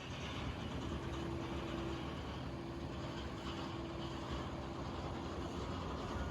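A distant engine running steadily: a low rumble with a faint steady hum over it.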